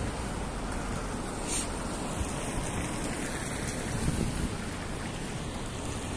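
Steady rushing street noise while walking beside a road: passing traffic mixed with wind on the microphone.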